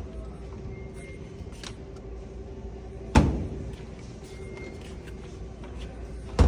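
Two loud slams, a display washing machine's door or lid banged shut, about three seconds apart, each with a short metallic ring, over a steady low hum.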